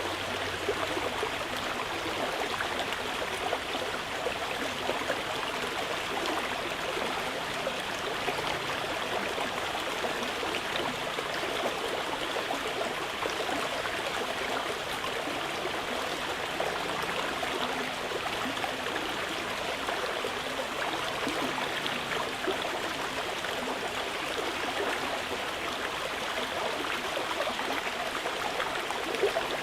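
Mountain river flowing steadily over rocks, a continuous babbling rush of water.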